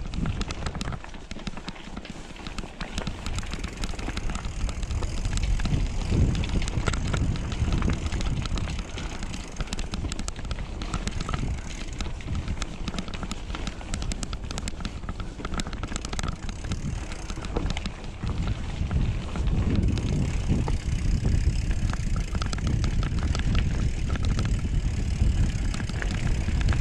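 Mountain bike descending a dirt trail: a steady low wind rumble on the microphone, with the bike clattering and rattling over rough ground throughout.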